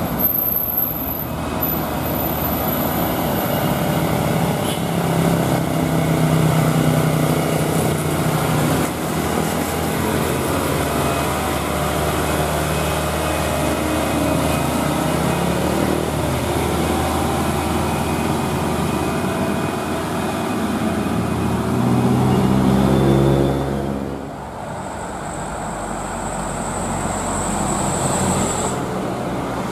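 Diesel engines of loaded dump trucks labouring up a steep climb, first a Hino light dump truck with its engine note rising as it revs about three quarters of the way through. After a sudden change near the end comes a quieter Mitsubishi Canter dump truck, with a high steady whine over it.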